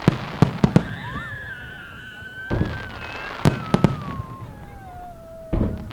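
Fireworks exploding: deep booms about 3 s apart, with clusters of sharp crackling reports between them. A high tone glides slowly downward in pitch through the middle.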